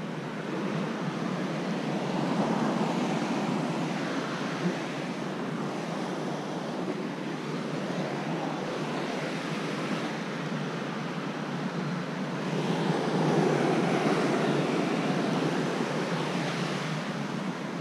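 Ocean surf washing against the base of a granite sea cliff, a steady rushing that swells louder twice, mixed with wind on the microphone.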